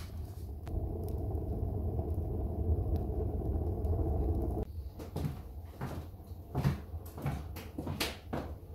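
Wood fire drawing in a brick stove's firebox behind a closed cast-iron door, a steady low roar. It stops suddenly after about four and a half seconds and gives way to scattered knocks.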